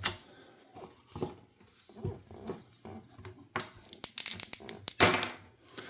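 Baseball cards and dice handled on a tabletop: paper rustling and scraping, then a quick run of clicks as dice are rolled, about two thirds of the way through.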